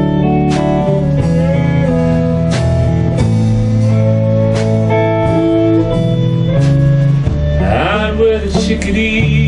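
Live band playing electric guitars and bass, with drums keeping a steady beat. About eight seconds in, a note slides upward in pitch.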